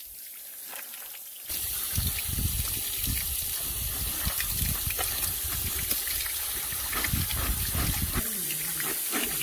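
Tap water pouring onto cut green beans in a metal mesh colander while a hand rubs and turns them, splashing and pattering on the mesh. The splashing is faint at first and becomes much louder and closer about a second and a half in.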